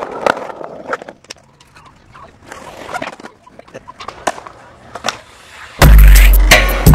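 Faint skateboard clicks and knocks on concrete, then loud music with a heavy bass beat cuts in suddenly about six seconds in.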